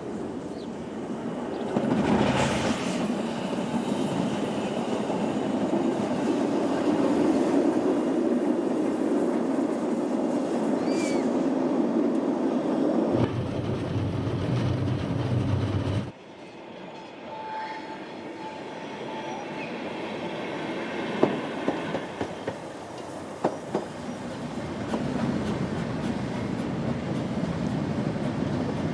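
The Rasender Roland narrow-gauge train running on its track: a steady rumble of the coaches, with sharp clicks over the rail joints and a short wheel squeal. The sound changes abruptly twice, about halfway through.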